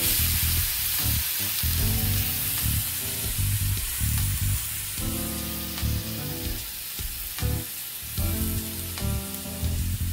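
A seasoned steak sizzling and searing on a hot electric flat-top griddle, the hiss starting suddenly as the meat goes down and staying steady. Background music plays underneath.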